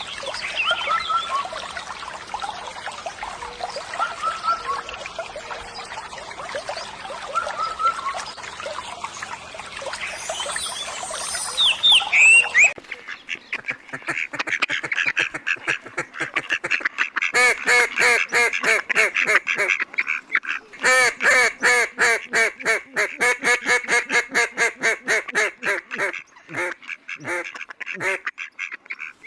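Water trickling, then about halfway through a fast chatter of bird calls, several a second, that carries on to the end with short breaks.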